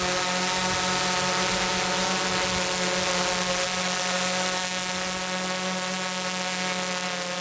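TBS Discovery quadcopter hovering: its four DYS BE3608 630kv pancake brushless outrunner motors and propellers give a steady drone of several held tones over a rushing whoosh, a little quieter after about four and a half seconds.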